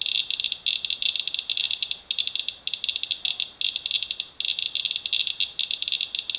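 Inspector Geiger counter clicking rapidly in a dense, high-pitched stream, with a few short gaps. At this count rate the display reads about 0.49 mR/hr, roughly 50 times background, from a stack of paper towels wiped through drizzle.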